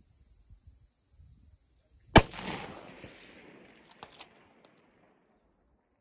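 A single 6mm Creedmoor rifle shot about two seconds in, with a long rolling echo that dies away over about two seconds. A few sharp clicks follow.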